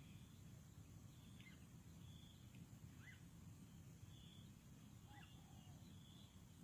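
Near silence: a faint low background rumble with a few faint, short high chirps from distant small birds.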